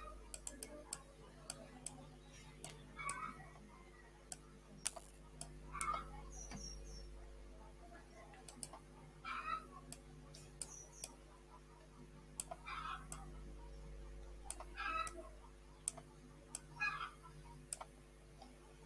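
Faint, irregular clicking of a computer mouse while strokes are drawn on a whiteboard, with a short soft noise every two to three seconds over a steady low electrical hum.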